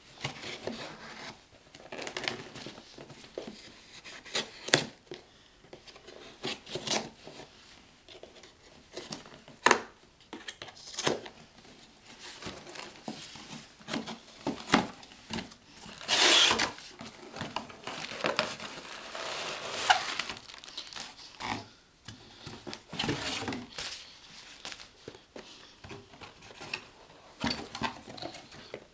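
A cardboard shipping box being opened by hand: packing tape cut with a knife and torn away, flaps and cardboard scraping and rustling, in a string of irregular rasps and knocks. A longer tearing rasp comes about sixteen seconds in.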